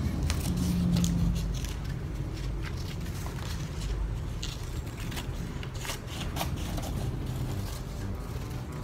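Scissors snipping through a sheet of paper in irregular short cuts, with the paper rustling as it is turned.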